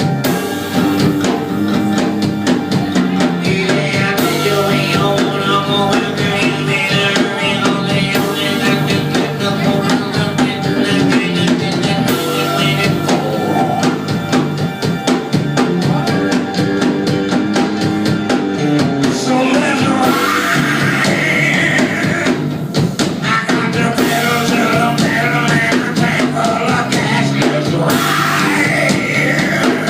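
Band music in an instrumental break of a soul song, with a drum kit keeping a steady beat under guitar and a wavering lead melody line.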